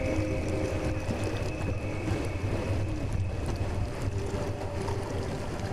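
Steady wind buffeting the microphone, a low, even rumble with a hiss above it.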